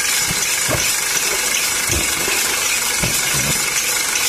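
Homemade belt-driven machine running under a half-horsepower electric motor, its shaft spinning with a steady whir, with a few dull low knocks.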